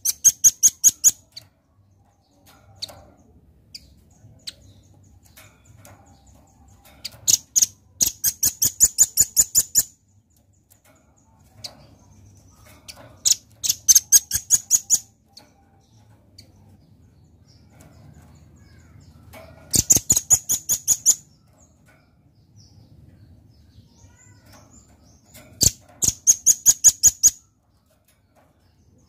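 Velvet-fronted nuthatch calling in five bursts of rapid, high, evenly repeated chips. Each burst lasts a second or two at about seven notes a second, with pauses of several seconds between bursts.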